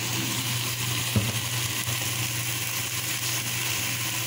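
Chicken and spices frying in a pot with a steady hiss over a constant low hum, and a single sharp knock about a second in.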